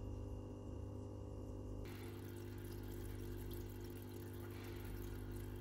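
Aquarium air-driven sponge filters bubbling in the water over the steady hum of their air pump; about two seconds in, the bubbling hiss gets brighter and fuller.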